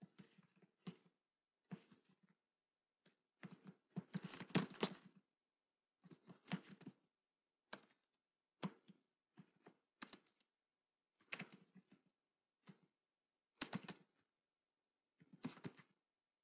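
Computer keyboard typing in about a dozen short, faint bursts of keystrokes separated by brief pauses.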